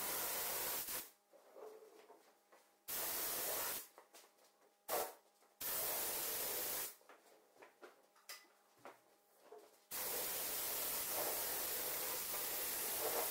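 Gravity-feed HVLP spray gun hissing as it lays a second coat of primer on a car door. It sprays in four passes, three of about a second each with silent gaps between, and the last starts about ten seconds in and keeps going. A brief sharp sound comes near five seconds in.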